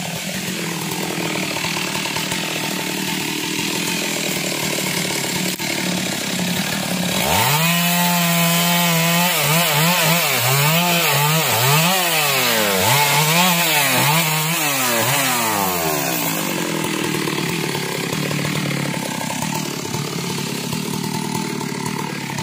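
Stihl two-stroke chainsaw running, revving up sharply about seven seconds in. Its engine pitch dips and recovers about once a second as it cuts through branches, then it drops back to a lower, steady running speed for the rest.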